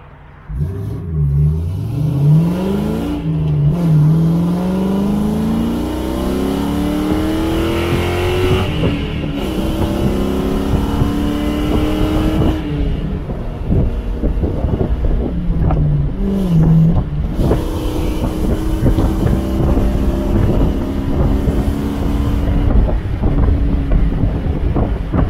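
A 2001 Mustang GT's 4.6-litre V8 accelerating hard, its pitch rising repeatedly and dropping back at each upshift of the manual gearbox, then settling to a steady cruise. Wind buffets the open-top cabin as speed builds.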